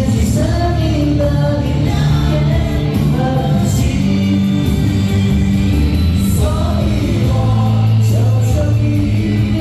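Loud live music with a singer: a song with a steady band accompaniment and bass over a sung melody.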